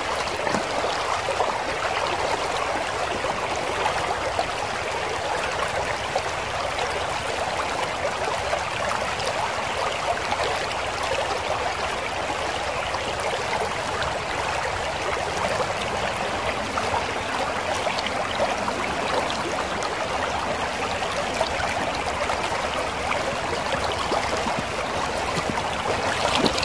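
Shallow river current running steadily over a riffle, a constant sound of flowing water.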